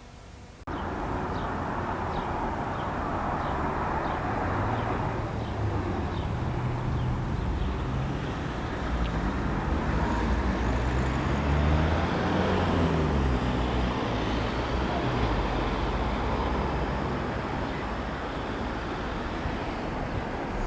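Road traffic: vehicle engines with a steady rush of road noise, their low drone slowly rising and falling in pitch as vehicles speed up and slow down. It starts abruptly a moment in.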